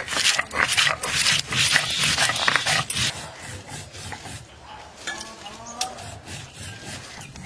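Cylindrical stone roller rubbed back and forth on a flat grinding stone, crushing wetted dried red chillies and cumin into paste. The gritty scraping strokes are loudest for the first three seconds, then go on more lightly.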